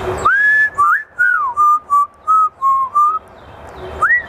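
African grey parrot whistling clear notes: a rising slide into a held note, then a quick run of short whistled notes, a pause, and another rising note near the end.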